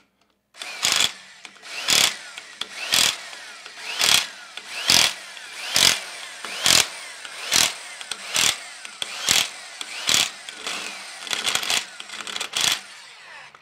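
Electric impact wrench running down the cylinder head bolts of a Copeland K-model compressor in short, loud bursts about once a second, with the tool's motor still spinning between bursts.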